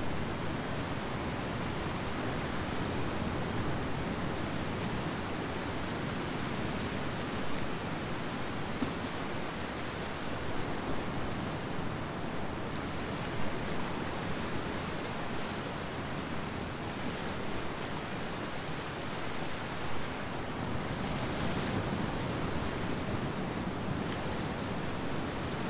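Ocean surf on a beach: a steady rushing wash of waves with small swells in loudness as waves break.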